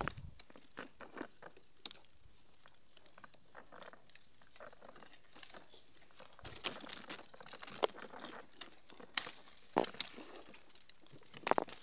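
Mango leaves and twigs rustling and crackling as a hand works through the branches to pick fruit, with scattered sharp snaps, the loudest few near the end.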